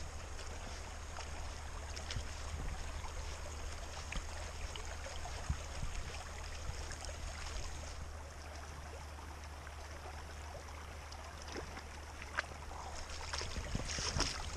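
Steady rushing noise of rainwater running along a trail, with wind rumbling on the microphone and scattered light clicks, rising near the end.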